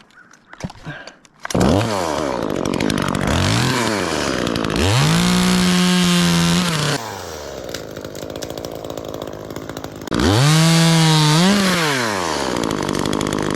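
Chainsaw engine starting about a second and a half in, then revved up several times and held at high revs, dropping back to idle between revs.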